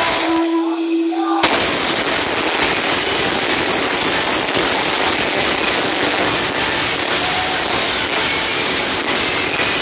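Loud club music over the sound system, overdriven on the recording into a dense crackling noise with no clear tune. About half a second in it drops out for about a second, leaving a single held tone, then the crackling noise returns.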